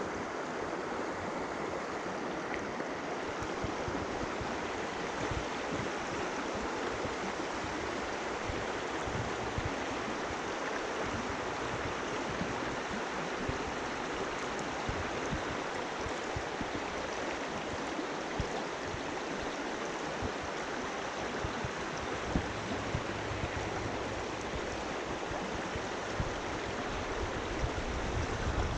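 Steady rush of a flowing creek, water running over its bed without a break, with some low rumbling near the end.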